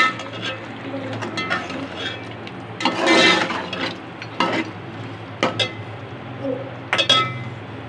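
A perforated metal spoon stirring a thick chicken and potato masala in an aluminium pot. It scrapes the bottom and clinks against the pot's side a handful of times, with short metallic rings, and there is a longer scrape about three seconds in.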